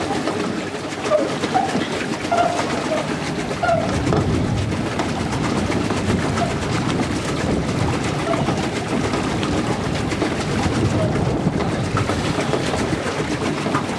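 Steady rushing noise of a boat moving across a lake, with a few short squeaky chirps in the first few seconds.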